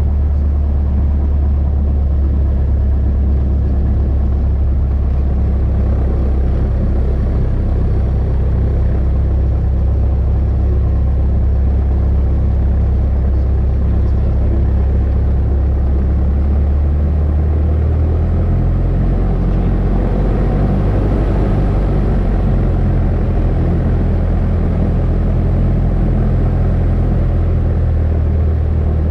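Cessna 172's piston engine and propeller running steadily at low power, with a slight change in its note about eighteen seconds in.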